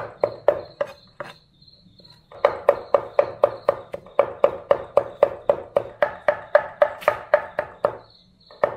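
Cleaver mincing pig's throat cartilage and meat on a thick wooden chopping block: rapid, even chops about four a second, each with a short ring. The chopping pauses for about a second near the start and again briefly near the end.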